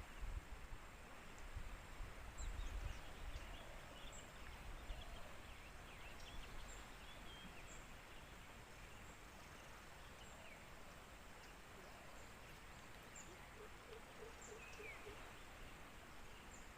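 Faint riverside outdoor ambience: scattered short, high bird chirps over a steady hiss, with a low rumble in the first three seconds and a quick run of repeated lower calls about two-thirds of the way through.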